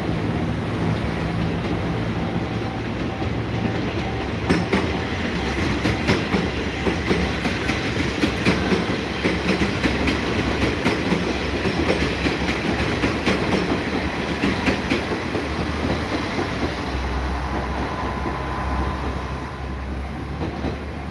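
A train passing close by, its wheels clattering over the rail joints. The clatter sets in about four seconds in and dies away near the end, leaving a lower rumble.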